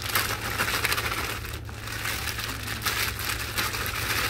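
Plastic bag crinkling as it is shaken and squeezed to empty crumbly, mycelium-colonised oyster mushroom sawdust into a pot, a dense crackle of small clicks and rustles.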